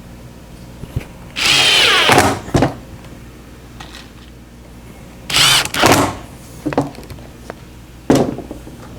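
Handheld power drill running in short bursts, its motor pitch rising and falling: one longer run about a second and a half in, two quick runs in the middle and a brief one near the end, with light knocks between.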